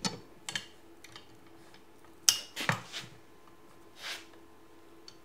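Metal clinks and knocks as a steel turnbuckle hook and trampoline spring are handled against square aluminium tubing: a couple of sharp clinks at the start, a cluster of them a little after two seconds in, and a softer scrape about four seconds in.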